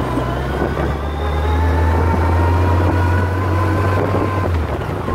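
Yamaha FJR1300's inline-four engine running at low revs as the motorcycle rolls slowly along a dirt track, its pitch rising slightly.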